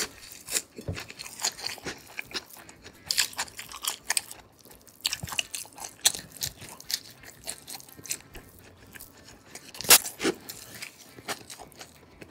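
Close-miked eating: a person chewing and biting food, with many small crunches and a louder crunch about ten seconds in.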